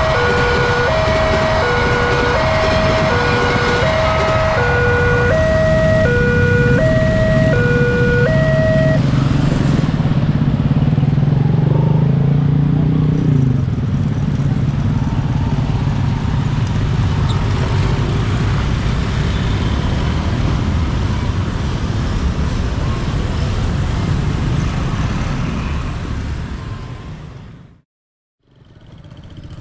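Railway level-crossing electronic warning alarm sounding a two-tone ding-dong, alternating about twice a second, over the rumble of a passing passenger train. The alarm stops about nine seconds in, and motorcycle engines and road traffic follow as vehicles cross the tracks. The sound fades out near the end.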